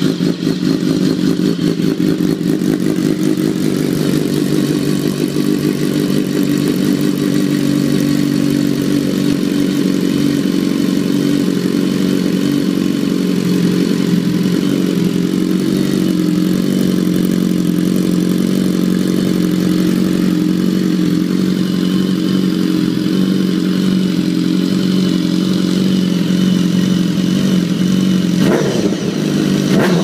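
BMW S1000RR's inline-four engine idling steadily through an Akrapovic exhaust, just after start-up, with a quick throttle blip near the end.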